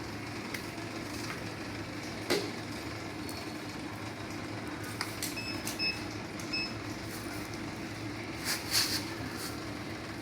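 Steady machinery hum, with a sharp click about two seconds in, three short high electronic beeps around the middle, and a few brief rustling bursts near the end.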